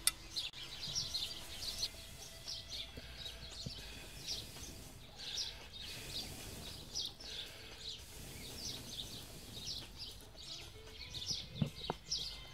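Small birds chirping, a continual run of short high notes, with a light knock or two.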